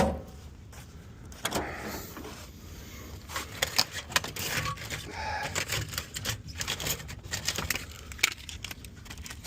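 A sharp knock, then irregular clicks and small metal knocks from hand work with tools and pipe. There is no steady saw or motor sound.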